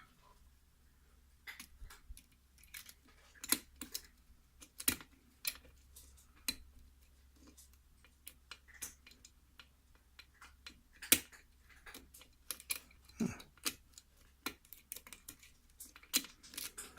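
Metal lock pick clicking against the pin stacks of a six-pin KIK lock cylinder as the pins are picked and reset: irregular small clicks and taps, a couple of sharper ones about two-thirds of the way in.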